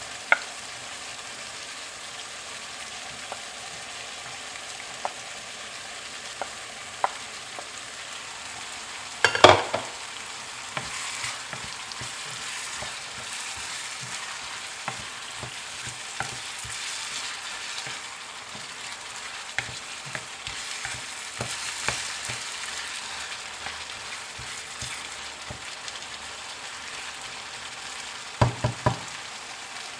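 Ground beef and diced onions sizzling in a nonstick frying pan while a wooden spatula stirs them, with scattered light clicks. The loudest sound is a sharp knock about nine and a half seconds in, and there are a few more knocks near the end.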